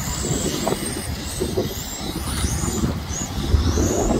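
Xray radio-controlled race cars running laps: a high-pitched motor whine that rises and falls in pitch again and again as the cars speed up and slow down, over a low rumble.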